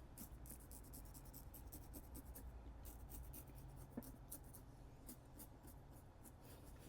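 Safety razor scraping through lather and stubble in quick, short strokes, each a faint crisp scratch, several a second.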